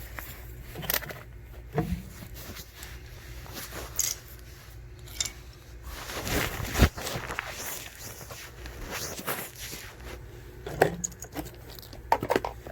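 Handling noise: scattered clicks and rustling as small objects are handled close to the microphone, with a longer, louder rustle and scrape about six to seven seconds in.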